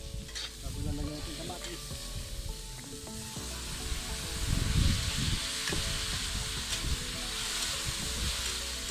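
Tomatoes and onions sizzling in a hot wok while a metal spatula stirs and scrapes, with a few sharp clinks against the pan. The sizzle grows louder from about three or four seconds in, as more ingredients go into the pan.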